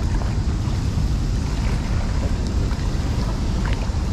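Wind buffeting the microphone over the steady rush of churning spillway outflow water, a continuous low rumble with a few faint ticks.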